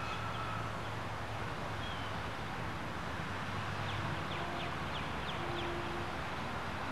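Outdoor ambience: a steady low hum under even background noise, with a quick run of short, high bird chirps about four to five seconds in.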